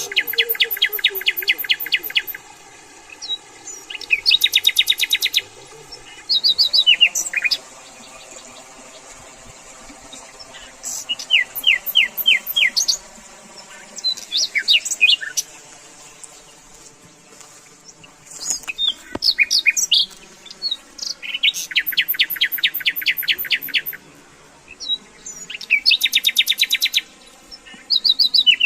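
Wild songbirds singing: several bursts of fast, rattling high trills, each a second or two long, with scattered short chirps between them.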